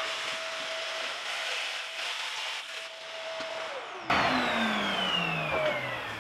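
Handheld vacuum cleaner running with a steady whine as it sucks up drilling debris. A little after halfway the whine drops, and then comes a sudden louder rush with a whine that falls steadily in pitch, as the motor spins down.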